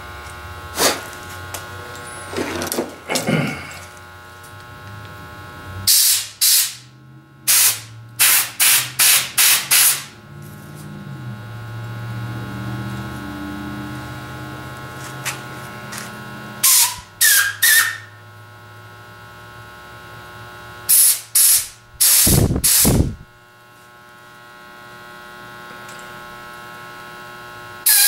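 Compressed-air blowgun giving short hissing blasts in quick groups of two to five, several times over, as the stove's fuel generator is blown out. A steady electrical hum runs underneath.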